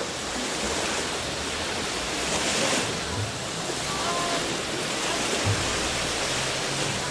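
Steady rushing wash of sea surf, mixed with wind, with no single event standing out.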